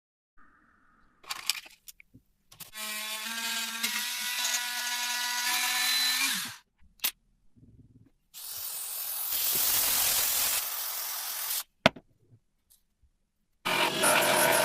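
A small power tool run in three bursts of a few seconds each, with short clicks and knocks between them. The first burst holds a steady whine that drops in pitch as it stops; the second is a more even hiss.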